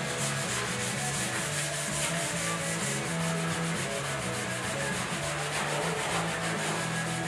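320-grit wet/dry sandpaper on a flexible hand block rubbed back and forth over the primed steel bed side of a 2003 Ford F150, wet sanding the primer smooth. The quick strokes run on steadily.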